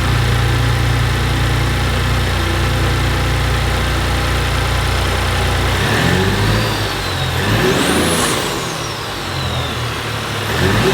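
2019 Ford Raptor's twin-turbo 3.5 L EcoBoost V6, freshly fitted with AMS turbo inlet tubes, idling steadily and then revved twice, the second time near the end. With each rev a high whine rises and then falls.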